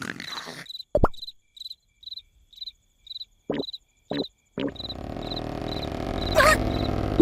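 Cartoon night-time sound effects: a cricket chirping steadily about twice a second, with a few short comic squeaks and plops. About two-thirds of the way in a steady low rumbling bed comes in, and a single loud harsh call sounds near the end.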